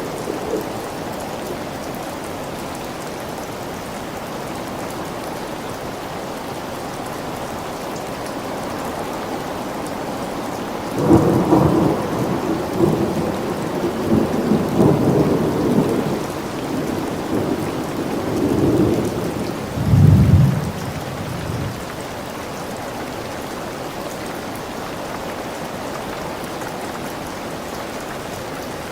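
Steady rain falling, with a long roll of thunder that starts about eleven seconds in, swells in several waves, is deepest and loudest around twenty seconds, and dies away a couple of seconds later.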